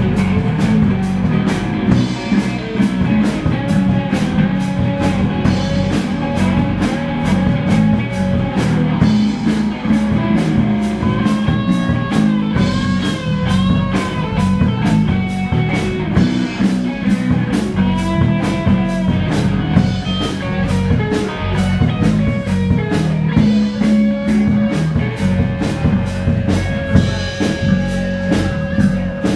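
Live rock band playing an instrumental passage: a drum kit keeps a steady beat under electric guitar playing lead lines with bent notes.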